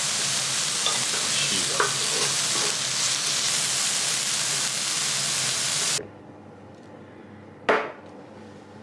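Meat sizzling on an iron teppanyaki griddle: a dense, steady frying hiss with a few small crackles, which stops abruptly about six seconds in. Near the end comes a single sharp clack.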